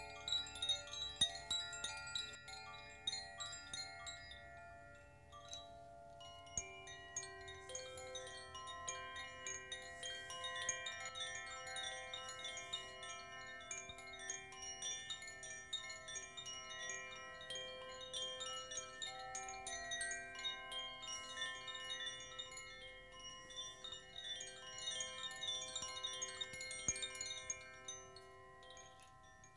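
Chimes played by hand, with many bright metallic notes struck in quick succession and ringing over one another. There is a short lull about five seconds in, then a fresh run of strikes that rings on and fades away near the end.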